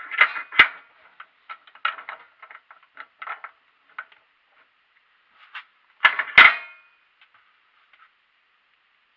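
Irregular clicks and taps of small parts being handled and worked at a bench vise, with two louder knocks about six seconds in.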